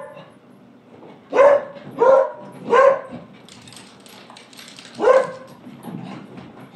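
Beagles barking while they play: three loud barks in quick succession starting about a second and a half in, then one more about five seconds in.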